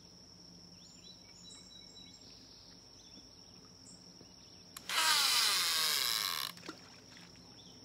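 Fishing line whirring off the reel spool in a cast, about five seconds in, for a second and a half, falling in pitch as it slows before it stops. Crickets chirr in a steady high tone throughout.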